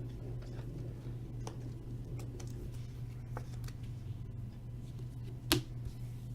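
Trading cards being handled and sorted by hand: scattered soft clicks and taps, with one sharper tap about five and a half seconds in, over a steady low hum.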